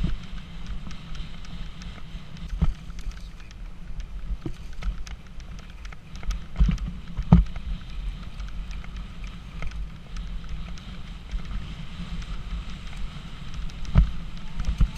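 Mountain bike riding over a rough grass and gravel track: a steady low rumble of wind buffeting and tyres on the microphone, with sharp knocks and rattles from the bike over stones, the loudest about seven seconds in and again near the end.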